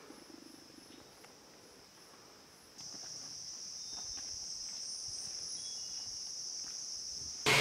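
Insects droning steadily at a high pitch in dense forest, the chorus growing louder about three seconds in.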